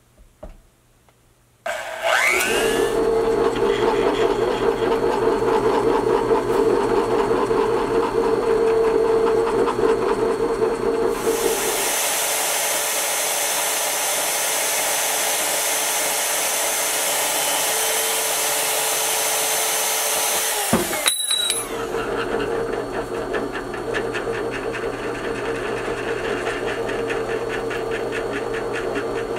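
Portable band saw starting up about two seconds in and running steadily as its blade cuts through an aluminium bar clamped in a vise, with a bright hiss as the blade bites through the metal in the middle stretch. It stops abruptly about two-thirds of the way through and gives way to a drill press running steadily as its twist bit drills into an aluminium plate.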